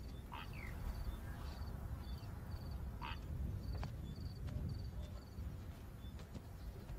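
Outdoor wildlife ambience: a high chirp repeating about twice a second, with a few short falling calls in the first half and a low rumble underneath.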